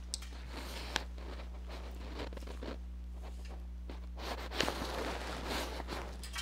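Light clicks and scrapes of a tiny curved hook being set into the jaws of a fly-tying vise, busiest near the end, over a steady low hum.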